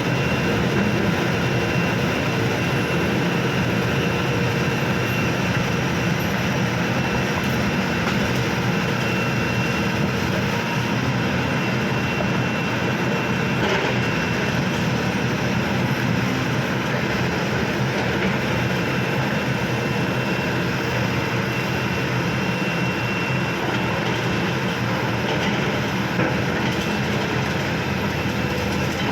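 Heavy diesel machinery running steadily with an even, unbroken engine drone, typical of an excavator or logging truck at work.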